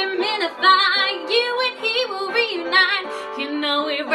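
A woman singing an upbeat song over instrumental backing music.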